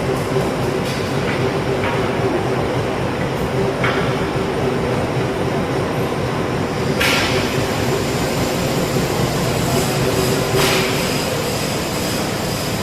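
CNC rack rolling machine running with a steady mechanical hum, broken by a few sharp clanks, the loudest about seven seconds in.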